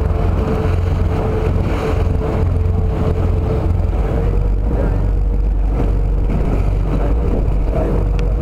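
Passenger boat's engine running steadily under way: a deep, even rumble with a steady hum above it.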